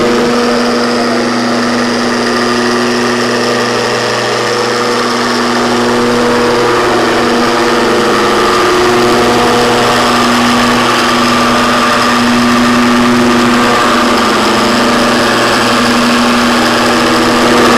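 Handheld electric machine polisher running steadily at a low speed on a car's painted panel: an even motor hum whose pitch dips briefly a couple of times.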